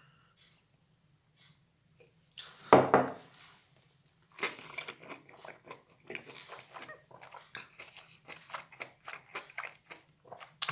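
A person chewing soft microwaved meadow mushrooms close to the microphone: one louder bite about three seconds in, then a run of quick wet mouth clicks and smacks, several a second.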